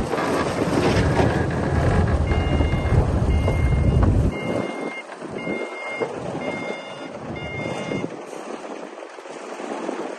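Komatsu D60P bulldozer's diesel engine running under load while its reversing alarm sounds, about six steady beeps roughly a second apart. The heavy engine noise drops away about four seconds in, and the beeps carry on over a quieter engine.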